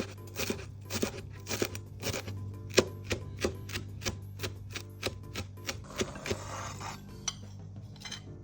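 Kitchen knife chopping food on a cutting board in quick regular strokes, about three a second, with a brief scrape of the blade across the board near the end, over background music.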